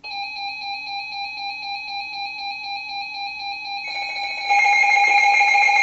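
Weather radio alert alarm: a steady electronic tone, pulsing three or four times a second, sounding for a new severe thunderstorm warning. About four seconds in, a second, higher alert tone joins it and the sound gets louder.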